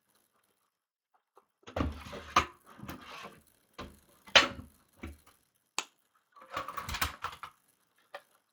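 Fire alarm devices being packed into a box: knocks and clunks as pieces are set down, with rustling and scraping between them, starting about two seconds in.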